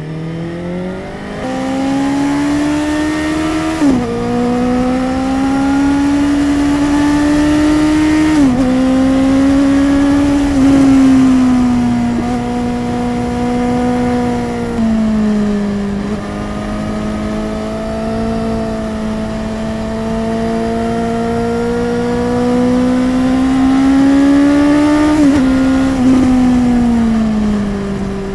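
Suzuki GSR 750's inline-four engine heard through a Yoshimura R11 aftermarket exhaust while riding. The note climbs as it pulls through the gears and drops sharply at upshifts about four and eight seconds in, then rises and falls with the throttle. Near the end it drops twice and falls away as the bike slows.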